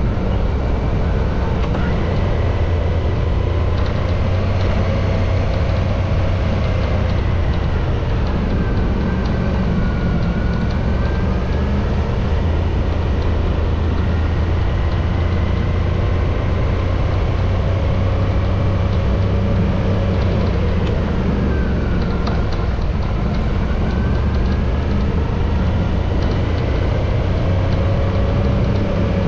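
Motorcycle engine running at road speed over a steady low rumble. Its note falls and climbs again twice as the revs drop and pick up.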